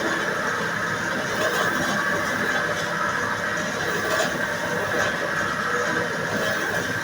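Bamboo-shoot slicing machine running steadily, its motor and cutter giving an even mechanical noise with a high squealing tone.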